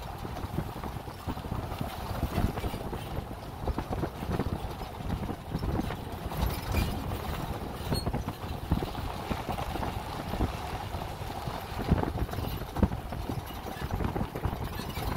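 Off-road driving on packed dirt: a steady low rumble of engine and tyres, broken by many irregular knocks and thumps.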